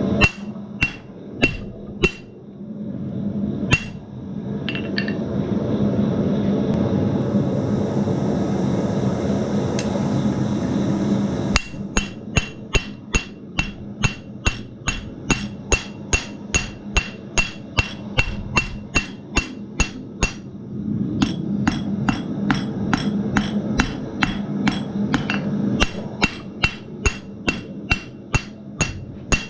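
Blacksmith's hammer striking steel bar stock on an anvil, flattening it and hammer-texturing a strap hinge. There are a few blows near the start, then after a pause of about ten seconds a long, steady run of blows, about two to three a second, each with a bright ring. A steady low rumble sits underneath, plainest during the pause.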